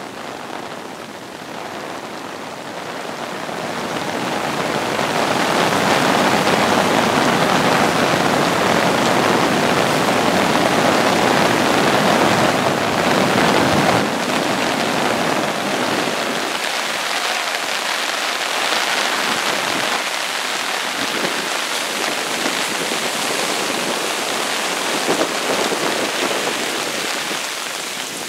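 A steady roar of storm surf breaking on the beach, mixed with rain, during a hurricane. It swells over the first few seconds and then holds steady.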